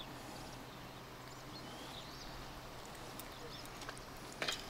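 Quiet pond-side outdoor ambience with a few faint bird chirps in the middle, and a brief cluster of sharp clicks near the end.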